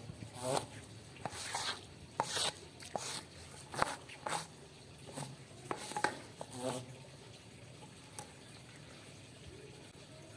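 Plastic squeegee pushed in short strokes across a soaked rug, squeezing the water out with wet scraping and squelching and an occasional brief squeak. The strokes stop about seven seconds in.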